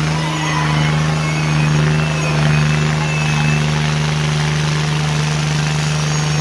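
New Holland farm tractor's diesel engine running hard under load at a steady pitch as it pulls through deep mud.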